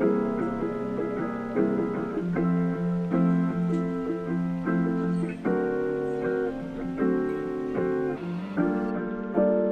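Background music: mellow plucked guitar chords changing about once a second.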